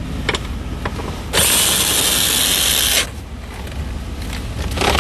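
Cordless drill/driver with an 8mm socket spinning out a console bolt: one steady whir lasting under two seconds, starting about a second and a half in, with a sharp click shortly before it and another near the end.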